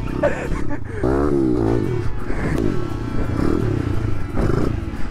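Small four-stroke dirt bike engine ridden on and off the throttle, its revs climbing and dropping back several times.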